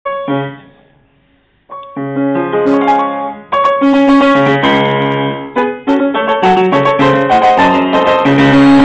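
Steinway & Sons upright piano played solo: an opening chord rings and fades out over about a second and a half, then loud, dense chordal playing starts up and runs on.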